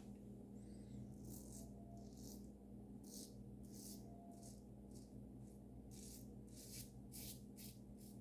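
Safety razor with a Dorco blade scraping stubble from lathered skin in a series of short, faint strokes, about ten, on a third pass against the grain.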